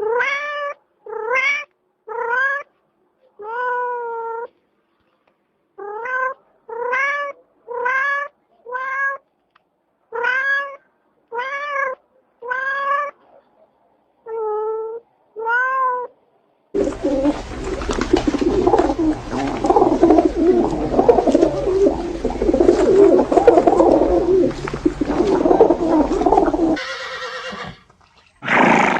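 Domestic cat meowing over and over, short rising-and-falling meows about one a second with a few longer ones. After about seventeen seconds the meows stop and a dense, continuous noisy sound takes over for about ten seconds.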